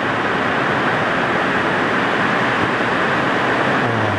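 Heavy rain pouring down as a steady, very noisy hiss with no breaks.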